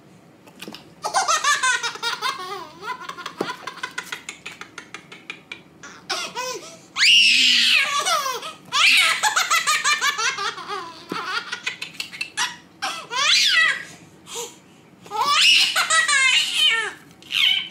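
A baby belly-laughing in repeated fits, each a run of quick breathy pulses, with short breaks between them, starting about a second in.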